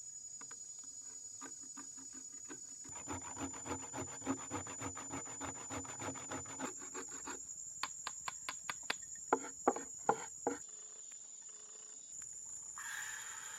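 Rasping, scraping strokes on wood, quick and continuous for a few seconds, then a run of separate sharper scrapes, over a steady high insect trill.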